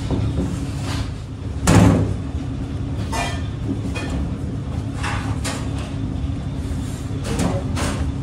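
A steady low mechanical hum runs under hands working paratha dough on a steel counter. There is one loud thump about two seconds in, then a few softer knocks and dull slaps of the dough.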